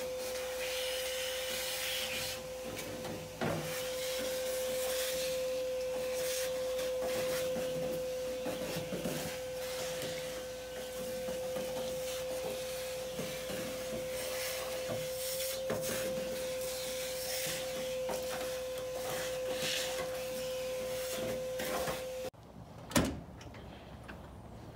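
Vacuum cleaner running with a steady whine, its hose nozzle scraping over a car's floor pan and sucking up dirt and debris in crackles. It stops abruptly near the end, leaving a quieter outdoor background and a single knock.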